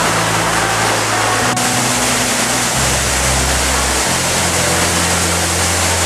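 Waterfall in flood from snowmelt: a loud, steady rush of high water. Background music with low sustained notes that shift every second or so plays underneath.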